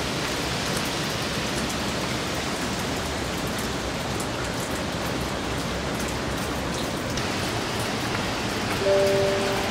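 Steady heavy rain and wind of a hurricane, an even rushing noise. Near the end, two held musical notes come in over it.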